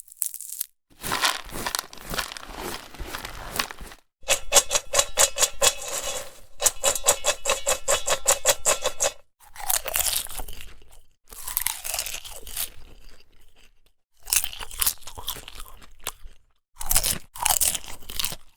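Crunching and crinkling sounds in several bursts of a few seconds, separated by short pauses. The longest burst, in the middle, is a fast, even rattle of clicks.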